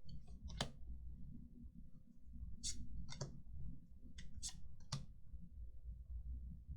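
Trading cards being handled: a few sharp snaps and short papery swishes as cards are flipped and slid against one another.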